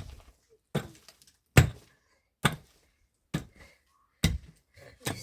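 Six heavy blows of a hand tool striking a hard material, evenly spaced at a little under one a second, each a sharp thunk.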